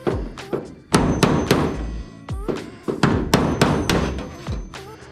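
Hammer striking a sharpened cold chisel to shear the heads off aluminium rivets on an aircraft skin: a series of sharp metallic blows in quick runs of two or three, each with a brief ring.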